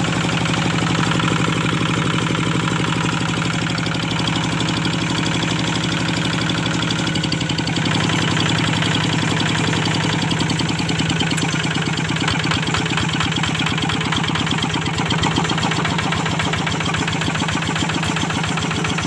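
Kubota diesel engine running steadily with a rapid, even diesel knock. Its note shifts slightly about seven or eight seconds in.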